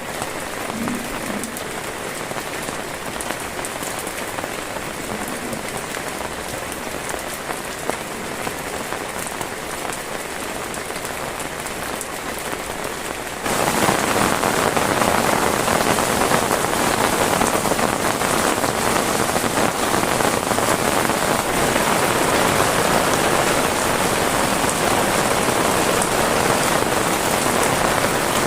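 Steady rain falling, a dense even patter that turns suddenly louder and heavier about halfway through.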